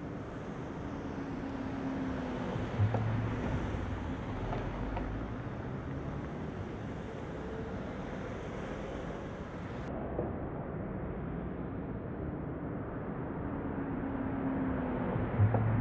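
An SUV running, with a steady rumble of engine and wind noise. A single sharp knock comes about three seconds in, and another near the end.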